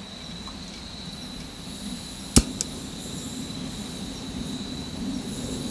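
Crickets chirping steadily in one high, continuous note. A single sharp click comes about two and a half seconds in, and a faint low rumble builds in the second half.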